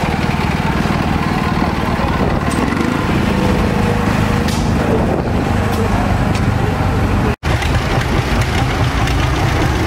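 Vintage tractor engines running at low speed as the tractors drive slowly past in a parade. The sound breaks off for an instant about three-quarters of the way through, and a second tractor, a John Deere-style two-cylinder, runs after the break.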